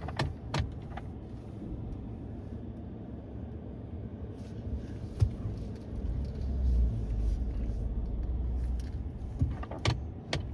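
Pickup truck engine running with a low rumble that swells for a few seconds in the middle, with several sharp clicks and knocks.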